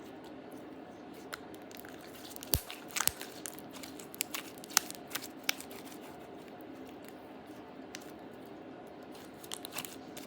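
Glossy slime being stretched and squished by hand, giving a scattering of sharp pops and clicks, most of them between two and six seconds in and a few more near the end.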